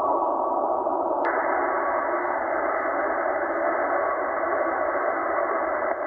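Shortwave receiver in upper sideband giving steady static and hiss, with a weak marine data signal buried in it, too noisy to decode. About a second in there is a click as the receiver's narrow filter is switched wider, and the hiss turns brighter.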